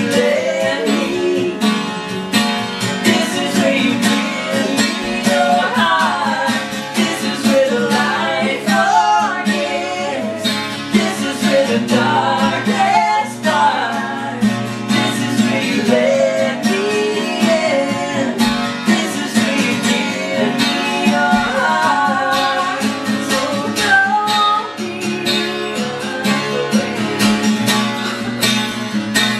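Live acoustic duo: a strummed acoustic guitar with a man and a woman singing.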